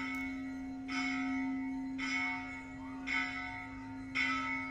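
Large temple bell struck about once a second, five strikes, each ringing on into the next over a steady low hum.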